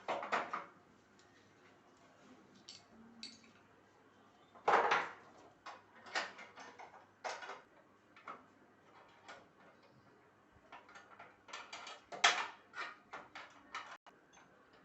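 Irregular knocks, clicks and clatter of sewing-machine parts being handled and fitted during installation, with louder knocks at the start, about a third of the way in and near the end.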